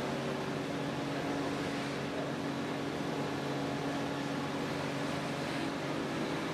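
Steady machinery hum from workshop equipment, with a few held low tones over an even hiss that does not change.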